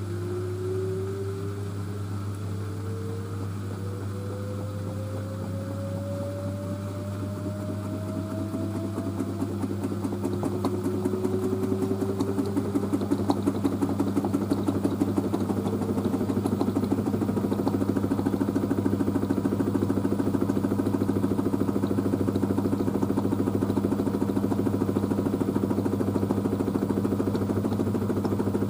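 LG DirectDrive F1496AD washer dryer ramping up into a spin with a load of towels. The direct-drive motor's whine rises in pitch over the first ten seconds or so, then the drum settles into a steady, louder spin with a fast, even pulse.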